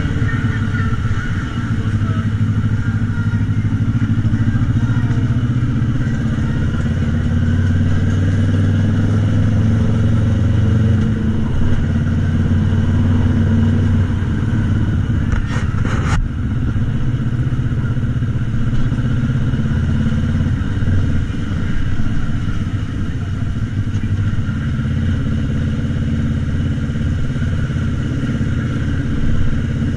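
Motor scooter engine running steadily, heard from on the scooter itself. A brief sharp knock about halfway through.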